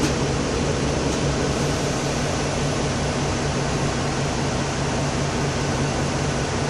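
Steady cabin drone inside a Mercedes-Benz Conecto II city bus: a constant low engine hum under an even rushing noise.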